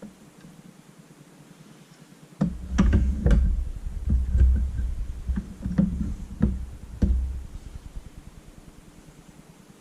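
Hands working metal and plastic paintball marker parts during disassembly: a run of sharp clicks and knocks over a low handling rumble, starting about two seconds in and dying away after about seven seconds.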